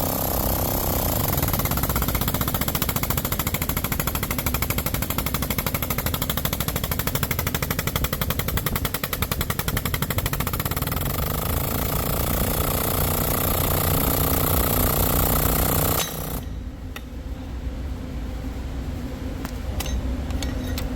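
Powered guided bend tester running with a rapid, even pulsing as it bends a welded steel test coupon for a face bend; it stops abruptly about 16 seconds in, leaving a lower hum and a few clicks.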